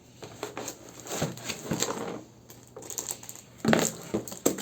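Unboxing handling noise: irregular clicks, taps and rustles of a product box and its packaging being handled, with the sharpest knocks near the end.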